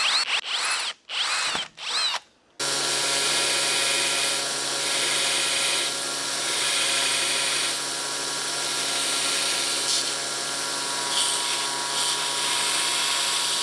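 An electric drill boring a hole in a metal plate in a few short bursts, its whine rising and falling with each burst. About two and a half seconds in, a belt grinder starts running steadily as the plate's edge is ground against the belt.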